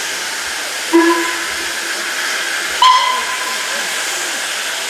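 Steady hiss of steam from a standing steam locomotive, cut by two short whistle blasts about two seconds apart, the second higher in pitch than the first.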